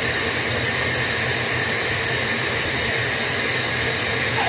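Shower running: a steady hiss of water spray.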